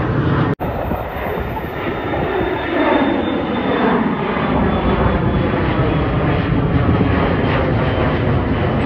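Jet airliners passing overhead: the engines give a steady, loud roar with slowly sweeping pitch. There is a brief break about half a second in where one plane's pass cuts to the next.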